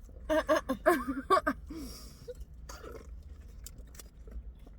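A person's voice for about a second near the start, not forming clear words, then quieter chewing and mouth noises with a few small clicks.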